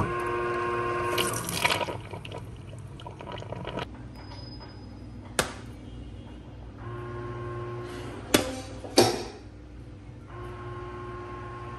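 Glass tumblers of water being handled on a tray: water sloshing, and a few sharp glass clinks, the loudest two about eight and nine seconds in.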